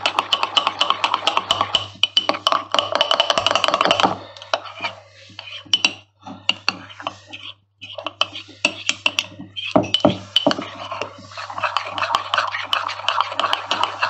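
A metal spoon stirring and scraping thick chocolate batter in a ceramic mug, working out lumps of cocoa powder, with quick clinks and scrapes against the mug. The stirring thins to a few scattered taps for a few seconds in the middle, then picks up again. A low steady hum runs underneath.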